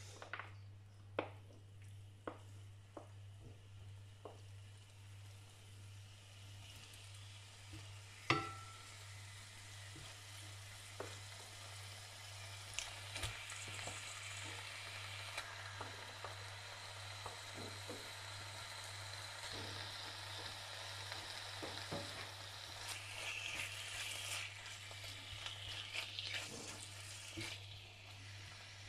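Raw chicken strips sizzling in hot sunflower oil in a stainless frying pan as pieces are laid in by hand. The sizzle grows as the pan fills, with a few soft clicks early on and one sharp ringing knock about eight seconds in, over a low steady hum.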